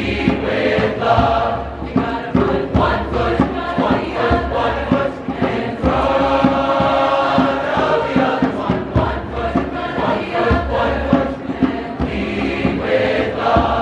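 Large choir singing in parts, holding a long chord about six seconds in, with a steady beat of short sharp strikes underneath.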